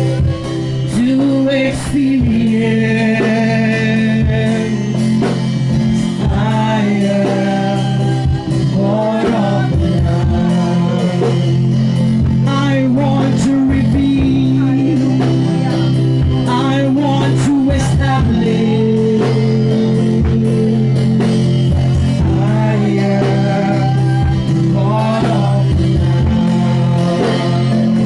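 Live worship music: a singing voice over sustained keyboard chords with guitar and a steady beat.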